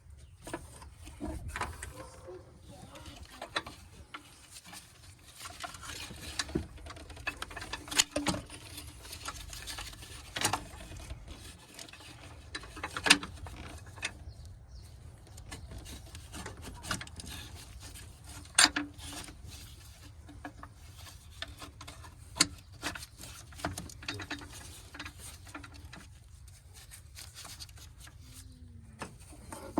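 Irregular clicks, taps and knocks of hand tools and parts being handled in a car's engine bay, with a handful of sharper knocks spread through.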